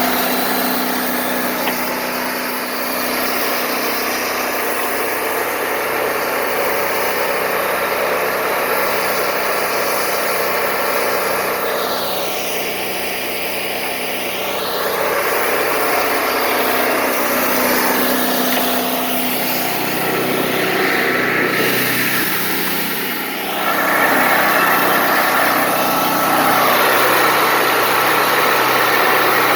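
Wood-Mizer LT40 Wide bandsaw mill running steadily while sawing boards. The higher part of the sound dips and comes back about halfway through, and it gets louder about three-quarters of the way through.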